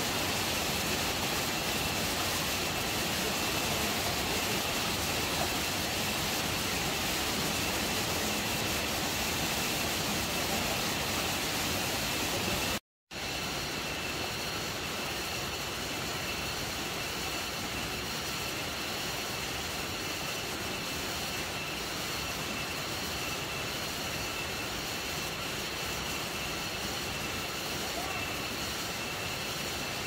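Shallow rocky jungle stream rushing steadily, a loud, even rush of water. After a brief cut about 13 seconds in, a similar steady rushing continues a little quieter, with a faint high steady tone above it.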